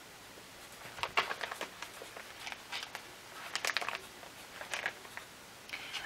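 Felt-tip marker writing on paper: a run of short scratchy strokes starting about a second in, as a line of capital letters is written.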